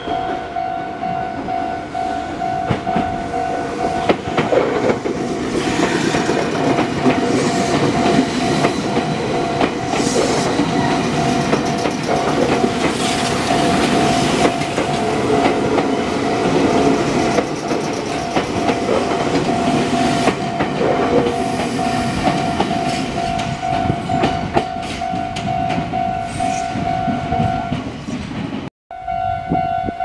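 Japanese level-crossing warning bell ringing steadily while a red Meitetsu electric train passes close by, its wheels clattering over rail joints and points for most of the time. The sound cuts out for an instant near the end, then the bell resumes.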